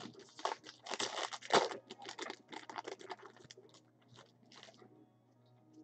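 Baseball trading cards and their foil pack wrapper being handled: a quick run of crinkling, rustling and sliding sounds, busiest for the first three seconds, then sparser and fainter.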